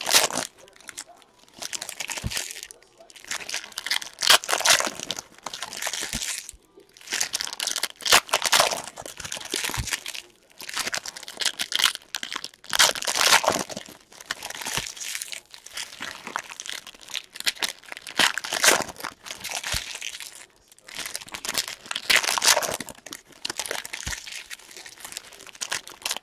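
Silver foil trading-card pack wrappers crinkling and tearing as they are ripped open and handled, in irregular bursts of rustling.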